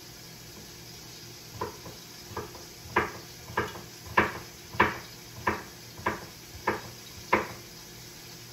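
A run of ten sharp kitchen knocks, evenly spaced about 0.6 s apart, starting softly, loudest in the middle, then stopping.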